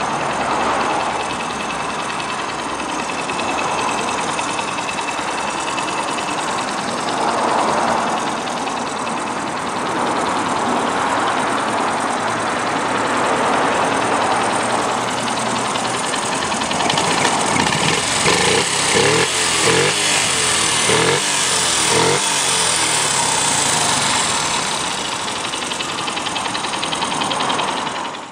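Honda Monkey 6V's 49cc four-stroke single-cylinder engine running at idle, blipped up several times in quick succession around two-thirds of the way in, then cut off abruptly at the end.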